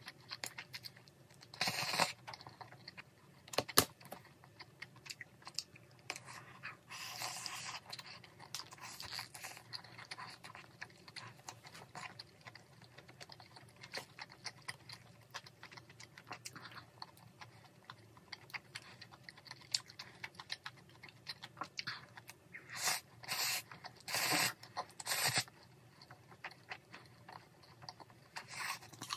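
Close-up eating sounds of spicy instant fried noodles with melted cheese: irregular slurps and chewing. There are short noisy bursts around two seconds in, again around seven seconds, and a cluster near the end, with one sharp click about four seconds in.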